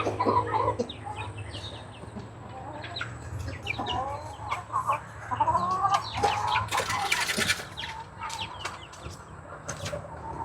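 Chickens clucking in a coop: short, scattered calls, with scattered small clicks and a brief rustling burst about seven seconds in.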